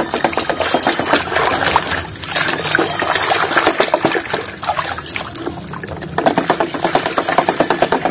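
Hands sloshing and squelching through thick muddy water in a plastic tub, dredging up a toy truck: a dense, irregular run of wet splashes and slaps.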